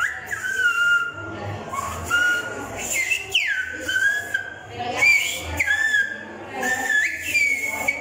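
Silbo Gomero whistled speech, blown through another person's fingers held in the whistler's mouth: a string of high, sliding whistled notes, several swooping sharply downward. The whistled phrase means "I ask you: what is this street called?"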